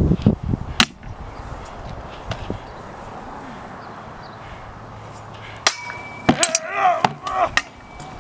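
Dane axe, sword and wooden round shield clashing in a display fight: one sharp strike about a second in, then a quick flurry of four or five sharp clacks and clangs near the end.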